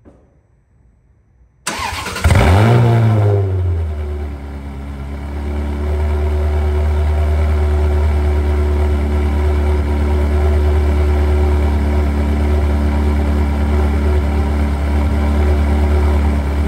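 Ferrari 360 Spider's V8 starting through a newly fitted Tubi-style exhaust. It fires about two seconds in, flares briefly in revs, then settles into a steady, loud idle.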